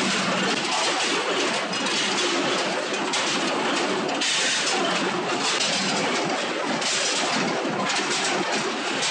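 Steady, loud clatter of metalworking machinery, with clinking of sheet-metal strips and scraps. The sound changes abruptly a few times.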